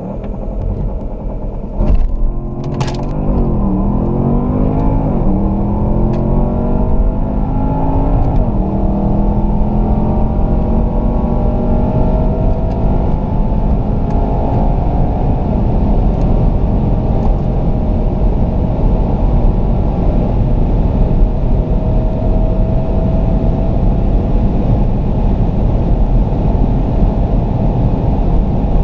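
Porsche Panamera Turbo's twin-turbo V8 at full throttle from a launch, heard from the cabin. It surges about two seconds in, climbs in pitch and drops sharply at each upshift, three times in the first nine seconds, then rises slowly over heavy road and wind rumble as speed builds past 250 km/h.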